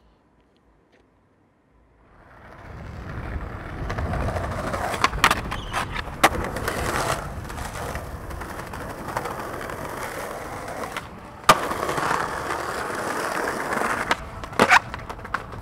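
After about two seconds of near silence, skateboard wheels roll over smooth pavement. Several sharp clacks of the board against the ground come through the rolling, the loudest about three quarters of the way through.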